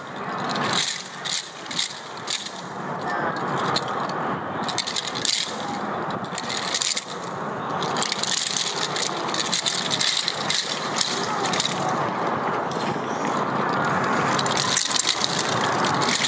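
Many wooden naruko clappers rattling together as a whole dance troupe shakes them, a dense, continuous clatter of sharp clicks.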